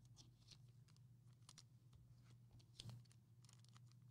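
Near silence: faint clicks and rustles of trading cards being flipped through by hand, the sharpest click a little under three seconds in, over a low steady hum.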